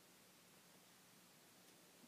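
Near silence: room tone, a faint steady hiss with a faint low hum.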